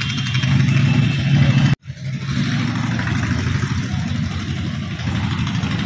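A motor engine running steadily, a low hum that cuts out for an instant a little under two seconds in.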